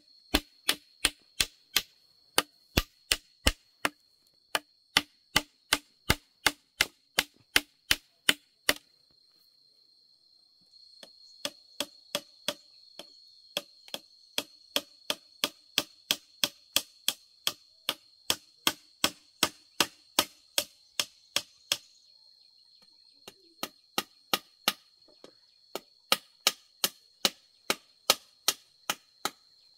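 Hammer driving nails into a bamboo frame: quick, even blows of about three a second, stopping briefly twice. A steady high insect drone runs underneath.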